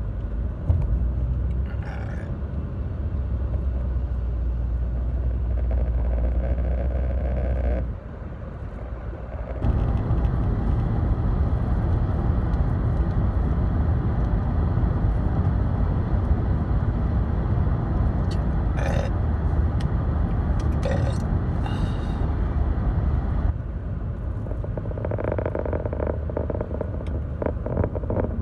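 Steady rumble of a car in motion, heard from inside the cabin, dropping quieter for about two seconds around eight seconds in.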